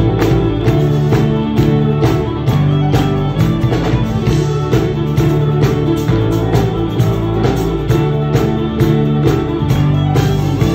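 Upbeat band music with violin, bass and a steady drum beat of about two beats a second.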